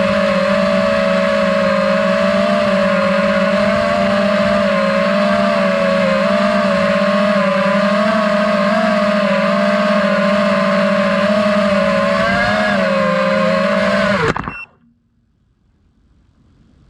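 FPV drone's brushless motors whining steadily, the pitch wavering slightly with throttle. About fourteen seconds in, the motors spin down quickly and cut off.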